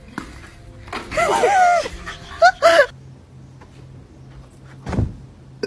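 A dog whining and yelping: one long wavering whine about a second in, then two short high yelps. A dull thump follows near the end.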